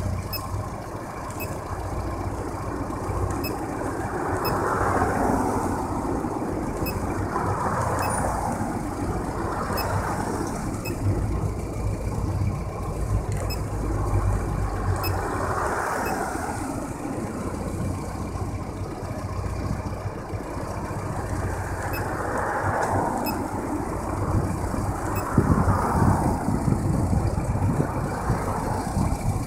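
Rover Mini Cooper 1.3i's four-cylinder A-series engine idling steadily at about 850 rpm, fully hot, through a stage 3 long-centre-branch manifold and stainless rear exhaust. A rushing hiss swells and fades every few seconds over the idle.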